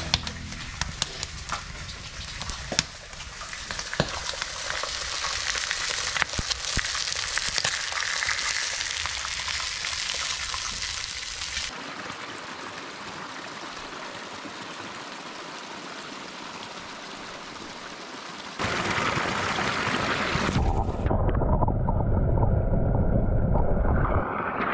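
Wood fire crackling in an open fireplace, with many sharp pops, for about the first half. Then a small creek trickles softly. Near the end comes a louder rush of flowing water, heard muffled from underwater.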